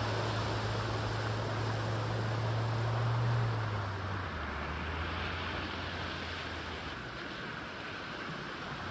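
A van driving through deep floodwater, its engine humming low while its wheels throw up spray with a steady rushing wash of water. About three and a half seconds in the engine note drops and then fades as the van moves away, leaving the rush of water.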